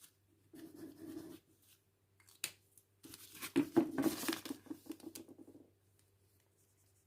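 Fine-point 0.7 mm permanent marker scratching across paper as it is tried out, in a short run of strokes near the start and a longer run from about three seconds in to near the end, with a single click in between.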